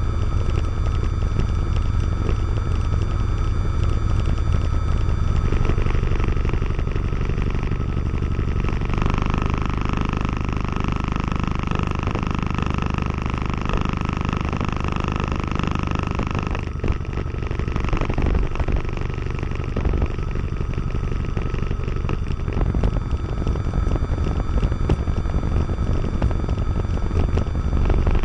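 Diamond DA20-C1's Continental IO-240 four-cylinder engine and propeller running at approach power on final, heard from inside the cockpit. A steady engine drone whose tone shifts about nine seconds in, with a brief dip around seventeen seconds.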